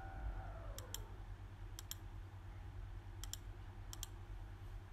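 Computer mouse clicking four times about a second apart, each click a sharp doubled tick, over a steady low electrical hum.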